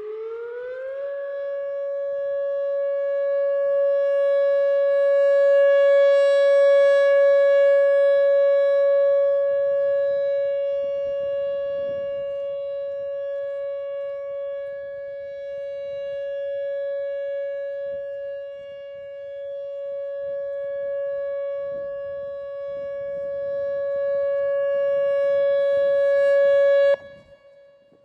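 Whelen WS-2000R electronic outdoor warning siren sounding its steady alert tone. A short rise in pitch at the start settles into one held tone that slowly swells and fades in loudness, then cuts off suddenly near the end.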